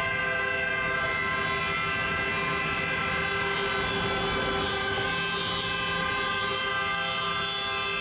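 Vehicle horns held down in one long, unbroken protest blast, a steady chord of several tones that doesn't change in pitch.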